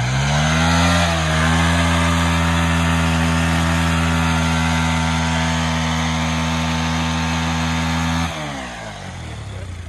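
Bajaj Pulsar 220's single-cylinder engine revved up and held at high revs as the rear tyre spins in loose sand in a burnout. It drops back to a low idle about eight seconds in.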